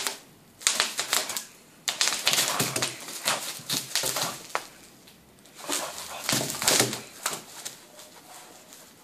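Bubble wrap crinkling and crackling with rapid clicks as a French bulldog scrambles over it and rubs and presses itself into it, in three spells with short quiet gaps between.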